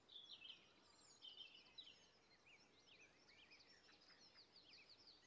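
Faint songbird chorus: many quick chirps and twitters overlapping steadily, with no other sound.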